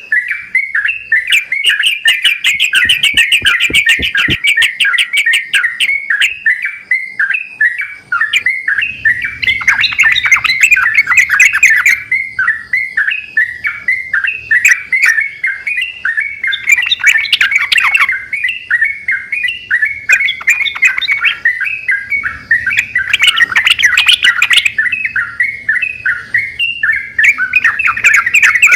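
Yellow-vented bulbuls singing and chattering vigorously, several birds answering one another in a continuous stream of rapid notes.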